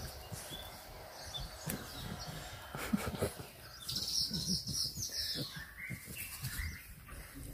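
Puppies rustling and crackling in dry grass clippings while tugging and chewing on a stick. A bird chirps in the background, in a high run of chirps about four seconds in, followed by a few shorter chirps.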